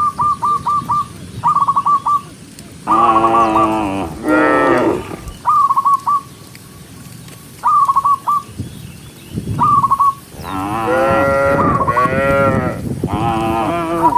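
Cattle mooing: two long moos about three seconds in, then a run of overlapping moos from several cows from about ten seconds on. Between the moos, short bursts of a high, rapid trilling whistle repeat.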